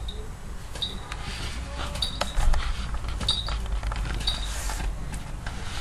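A Harris hawk's small falconry bell clinking four times, about once a second, each a sharp clink with a brief ring, as the hawk moves on the rabbit-skin lure. A steady low rumble lies under it.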